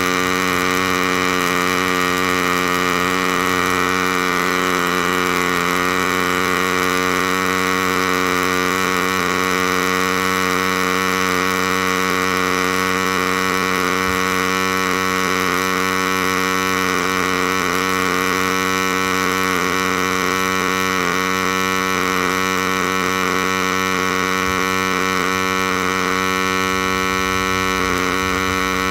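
MIG welding arc on a DIY CNC welding machine laying a continuous bead: a steady, unbroken electrical buzz and hum with many held tones.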